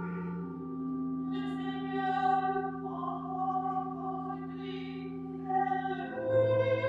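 Sung responsorial psalm of a Catholic Mass: a singing voice over held accompaniment chords, the chord shifting a little after the start and again near the end.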